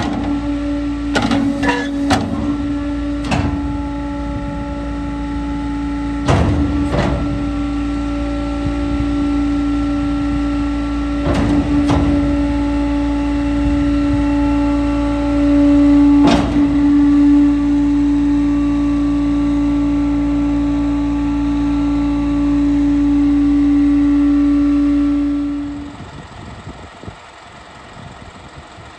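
Hydraulic packer of a Pac-Mac rear-load garbage truck body cycling, with a steady hydraulic whine over the Isuzu 4HK1TC diesel's low running note. About eight sharp clunks come over the first 16 seconds as the packer panel moves and reaches its stops. The whine winds down near the end.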